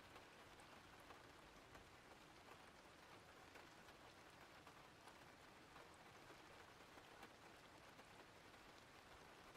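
Faint, steady rain ambience: an even hiss with scattered small drop ticks.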